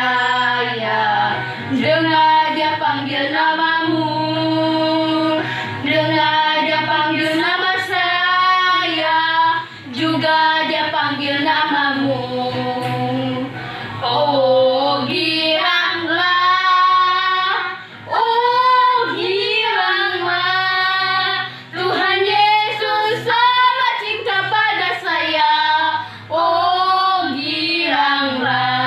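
Children singing an Indonesian Christian children's song together with a woman's voice, over musical backing, in phrases with short breaks between them.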